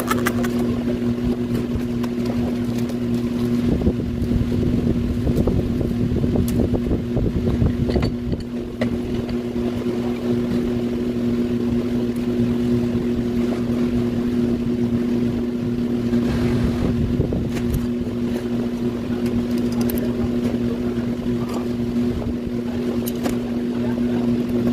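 A motor running steadily with a constant hum, with a few faint knocks now and then.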